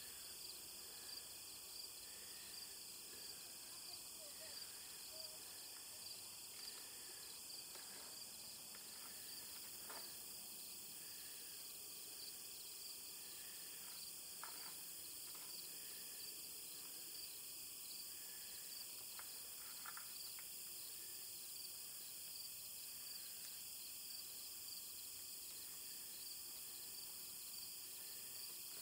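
Crickets and other insects chirping in a steady, high, pulsing chorus, with a few faint clicks now and then.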